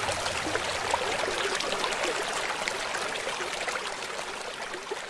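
Water bubbling and trickling, slowly fading out.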